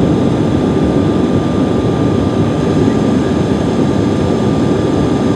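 Steady cabin noise inside a Bombardier CRJ700 regional jet descending to land: a constant rush of airflow and the hum of its rear-mounted General Electric CF34 turbofans, with a thin steady whine over the top.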